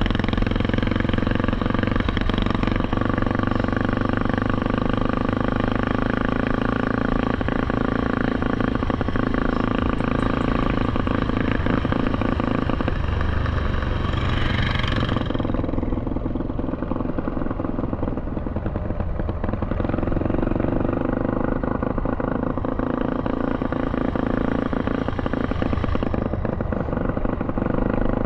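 Small ATV engine running steadily while under way on a dirt track. The sound turns duller about halfway through.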